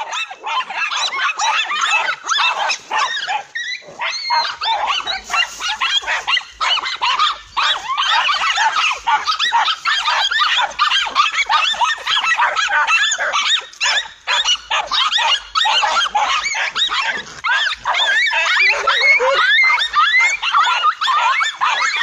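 A pack of dogs barking and yelping almost nonstop, many short overlapping calls from several dogs at once, as they attack a cornered lizard.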